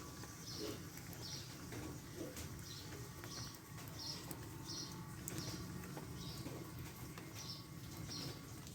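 A small bird chirping repeatedly, a short high note about once or twice a second, over a faint steady background hum.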